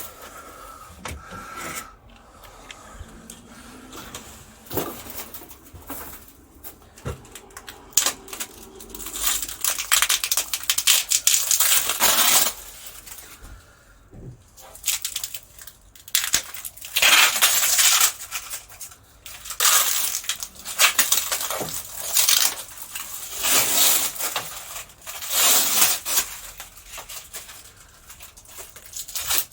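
Metal clinking and rattling from handling a weight-bench bar and cable drum, with repeated scraping bursts of about a second each through the middle and latter part.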